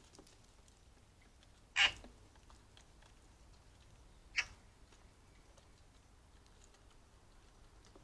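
Starlings and a wood pigeon pecking at seed on a wooden bird table: faint scattered ticks, broken by two short harsh sounds, a loud one just under two seconds in and a smaller one at about four and a half seconds.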